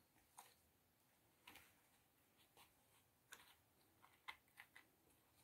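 Near silence broken by a few faint, short clicks and scratches, kittens' paws and claws on a cardboard scratcher bed and its paper lining.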